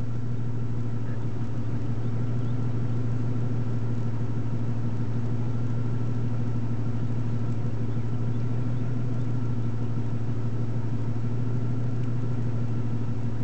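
A steady, unchanging low drone that does not vary in pitch or loudness.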